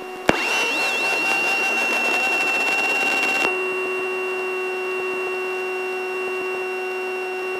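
Piper Aztec's starter engaged to restart the feathered left engine in flight, heard as electrical whine and a steady high beep-like tone in the cockpit audio: a click, then a short wavering rise that settles to a steady pitch. The sound changes abruptly about three and a half seconds in, a lower steady tone joining as the engine comes back to life.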